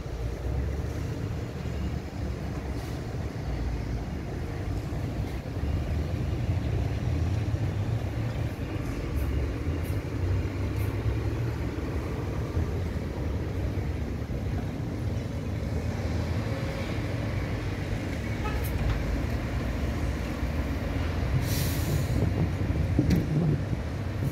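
Steady low rumble of city traffic heard from above, with a short sharp hiss near the end.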